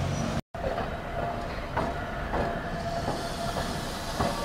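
Toyohashi Railway streetcar rolling through a tight 11 m-radius street-track curve: wheels knock a few times over the rail joints, with a faint steady whine. The audio drops out briefly about half a second in.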